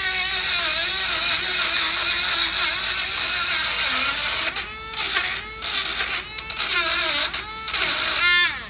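A small high-speed rotary tool (Dremel) grinding rust off the brake caliper bracket. Its whine wavers in pitch as it bites. About halfway through it runs in short on-off bursts, and it winds down with a falling pitch at the end.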